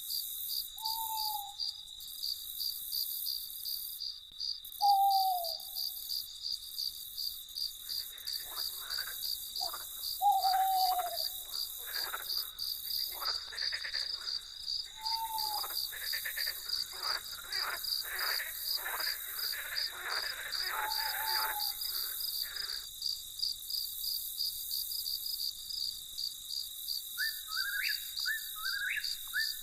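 Crickets chirping in a steady, fast pulse, with an owl giving single short hoots every four or five seconds. For about fifteen seconds in the middle a run of rapid rasping calls joins in, and near the end a few short rising bird calls.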